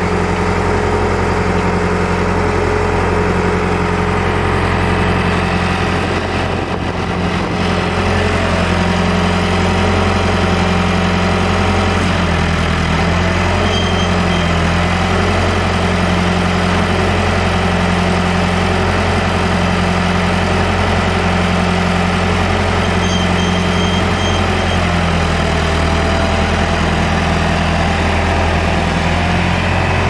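John Deere 410 backhoe loader's engine running steadily, with a slow regular pulsing in its note through the middle.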